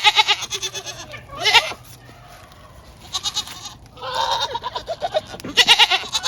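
Goats bleating, about five wavering calls in a row.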